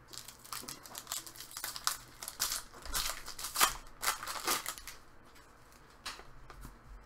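Hockey trading cards being flipped through and shuffled by hand: a run of quick, papery flicks and rustles that thins out after about five seconds.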